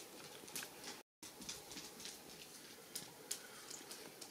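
Quiet room with a few faint clicks and taps of a metal spoon against a plastic bowl and an enamel mug at a table. The sound drops out completely for a moment about a second in.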